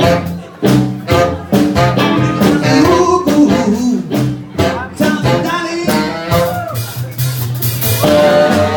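A band playing a song: a singer's voice over a steady beat, with guitar and bass.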